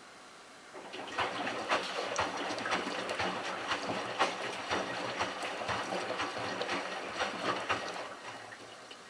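Miele Touchtronic W3033 front-load washer's drum turning through one tumble of its delicate wash cycle. Water and wet laundry slosh and splash with many small irregular clicks over a low motor hum, starting about a second in and easing off near the end.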